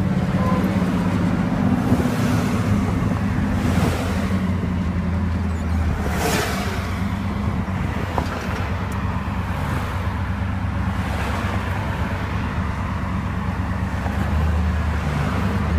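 Engine and road noise heard from inside a moving vehicle: a steady low drone under a rushing hiss that swells up several times.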